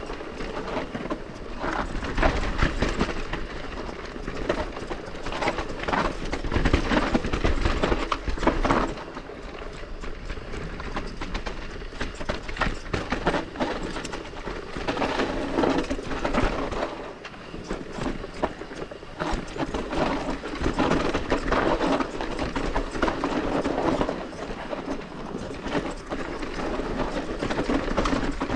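Santa Cruz Bullit electric mountain bike rolling down a steep, rocky dirt trail: tyres crunching over dirt and stones, with the chain and frame rattling continuously over the bumps and wind rumbling on the microphone.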